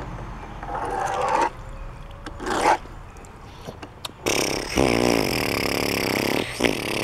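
A man making a steamboat noise with his mouth, a long wavering vocal sound that starts about four seconds in, as he pushes a toy boat along the wet surface. Before it, two short scrapes.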